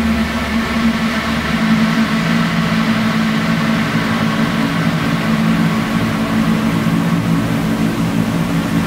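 Dense, steady electronic drone from a dark ambient noise track: sustained low tones over a rough hiss, with a deep low hum that drops away about a second and a half in.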